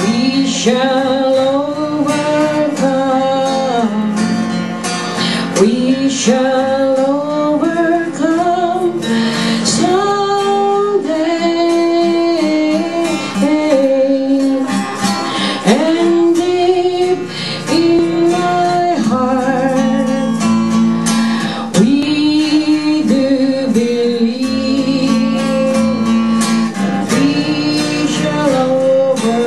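A woman singing a slow song with her own strummed acoustic guitar accompaniment.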